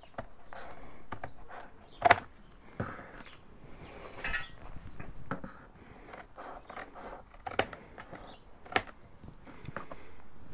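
Scissors cutting cardboard: irregular crunching snips and the card rustling, with a few sharp clicks, the loudest about two seconds in and two more later on.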